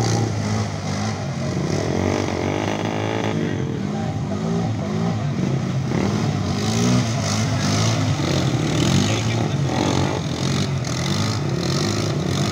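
ATV engine revving up and down as the four-wheeler pushes through deep muddy water, its pitch rising and falling unevenly under the load.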